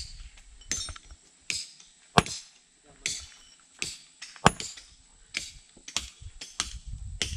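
A steady run of sharp strikes from a hand tool working material, roughly one every 0.7 s and quicker near the end. Two of the blows are much louder than the others.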